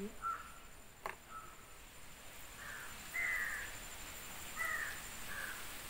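A bird calling four times in short calls from about two and a half seconds in, the second call the loudest, with a single sharp click about a second in.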